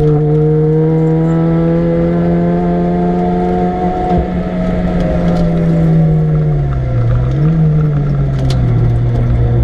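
Supercharged 1.6-litre four-cylinder engine of a Mini Cooper S R53 track car pulling hard at steady high revs. About six and a half seconds in, the pitch drops as it comes off the throttle, with one short rise and fall, and then it runs on at lower revs.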